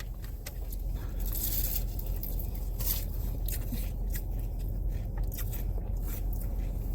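Someone chewing a crispy fried chicken sandwich close to the microphone: irregular crunches, about two a second, over a steady low hum.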